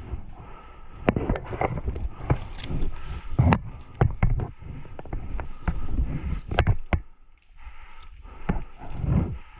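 Irregular single sharp snaps of airsoft guns firing, a few seconds apart, over rumbling wind noise and rustling on the microphone as the player moves.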